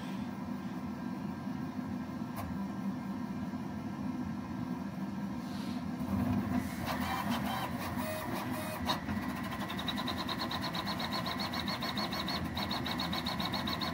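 Prusa Core One CoreXY 3D printer printing, not crazy loud: a steady low hum, with the stepper motors whining as the print head moves. From about six or seven seconds in, busier high motor tones join; around ten seconds a whine rises in pitch and pulses rapidly to the end.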